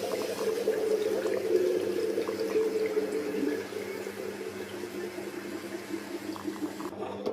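Coolant gurgling and bubbling through a PC water-cooling loop, loudest for the first few seconds and then settling, over a steady low hum that ends abruptly.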